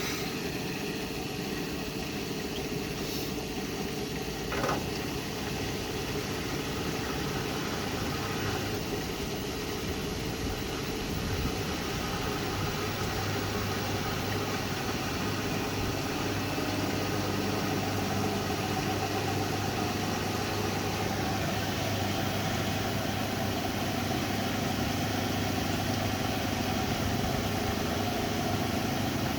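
Hoover Nextra Iconic and Beko WDER washer-dryers on their final spin, the drums building speed toward 1400 rpm: a steady motor and drum hum, joined by a low steady hum about twelve seconds in and a whine that slowly rises in pitch through the second half. A single short click comes about five seconds in.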